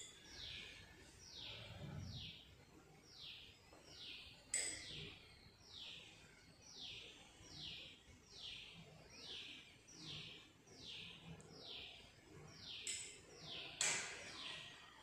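A bird calling over and over, a short falling high note repeated about every three-quarters of a second. Two sharp clicks stand out, about four and a half seconds in and near the end.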